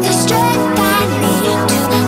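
Electronic music with sustained bass notes.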